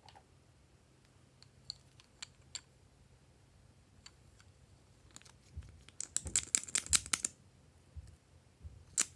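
Hard plastic lip gloss tubes clicking as they are handled, a few separate clicks early, then a rapid clatter of clicks and rattling as a cap is twisted off, and one sharp click near the end.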